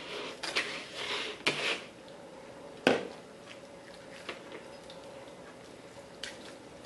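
Jagged-edged kitchen knife sawing and scraping meat off a raw chicken leg bone over a plastic plate: a run of rasping strokes in the first two seconds, then a single sharp knock just before three seconds in, and a few faint ticks after.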